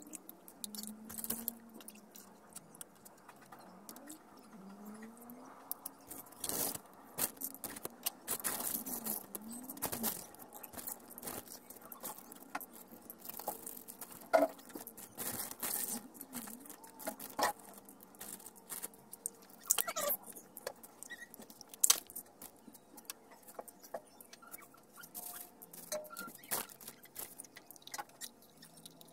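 Handling noise of a large plastic water bottle full of dirty aquarium water: irregular clicks, taps and crinkles of the plastic as pipe-filter sponges are worked at its neck and rinsed, with a few sharper knocks.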